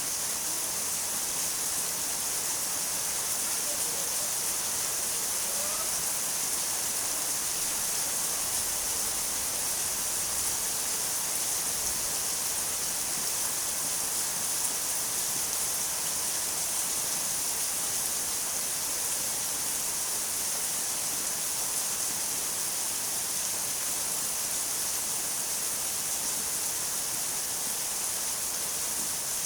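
Steady, continuous rain: an even hiss that is strongest in the high end and does not change.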